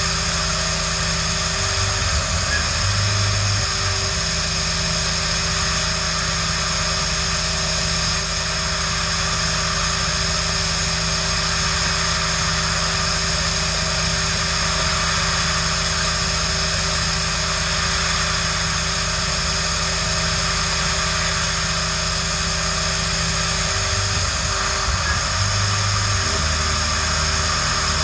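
Tormach 440 CNC mill running as it machines an aluminium plate: a steady whine from the spindle and drives over a constant hiss. The low tone changes briefly about two seconds in and again near the end.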